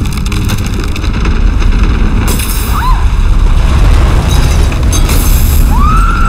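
Earthquake: a loud, continuous deep rumble with crashes of falling debris about two seconds in and again about five seconds in. A short high wail rises and falls near the end.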